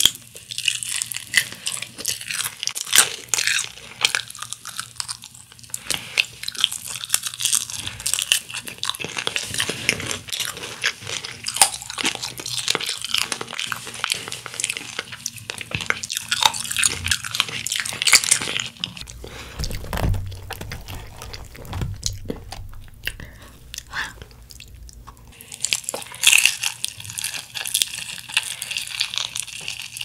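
Close-miked crunching and chewing of crispy honey-glazed fried chicken (Kyochon Honey Combo), bite after bite of the crackling coating. The crunching lets up for several seconds past the middle, where a low rumble is heard, and starts again near the end.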